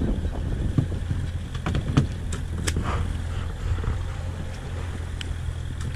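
Small fishing boat's engine running steadily at low revs, a constant low hum, with a few sharp knocks scattered through it.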